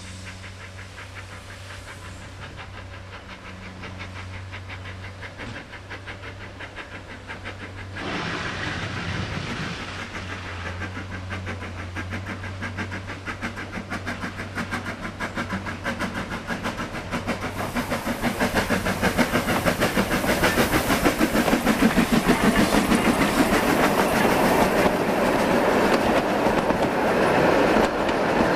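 Beyer Peacock 2-4-0 tank steam locomotive approaching under steam, its rhythmic exhaust beats growing steadily louder as it nears and passes. Near the end its carriages roll past with a clickety-clack over the rail joints.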